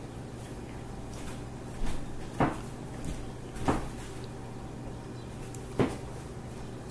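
A few soft knocks and bumps, four spread over about four seconds, over a steady low hum.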